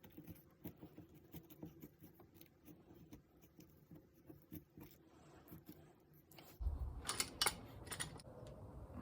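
Faint, irregular clicks and light taps of small objects being handled. About two-thirds of the way in, a louder low rumble begins with a few sharper knocks.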